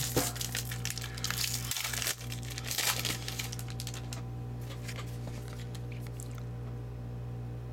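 Trading card pack wrapper crinkling and tearing as it is opened, densest for the first three seconds, then lighter rustling and clicks as the cards are handled.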